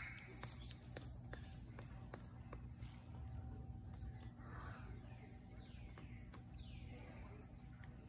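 Pileated woodpecker pecking at the wood of a tree trunk while foraging: light, irregular taps. Other birds chirp in the background, with a few falling notes about five to seven seconds in.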